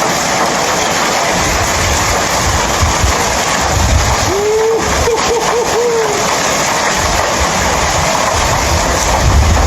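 Heavy storm downpour pelting down in a steady hiss, with gusts of wind buffeting the microphone from about a second in. A brief wavering voice-like cry comes about five seconds in.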